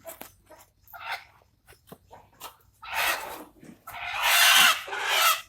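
Free-range country chickens clucking and calling: short, separate calls at first, then louder and longer calls from about three seconds in.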